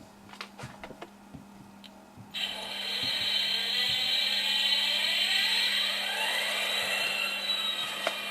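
A few light clicks, then about two seconds in an MRC sound board's recorded EMD 645 diesel prime mover starts up through a small speaker and revs, rising in pitch before holding steady at full power.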